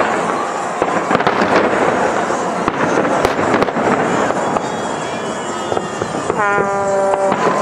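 Aerial firework shells exploding in a dense, continuous crackle, with repeated sharp bangs. About six seconds in, a steady buzzing tone is held for about a second.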